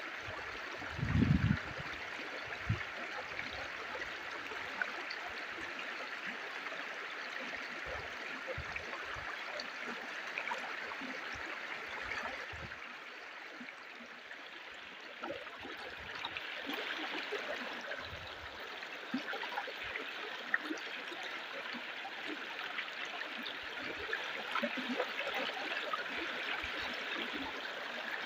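Stream water flowing steadily over rocks, an even rushing hiss. A brief low thump about a second in.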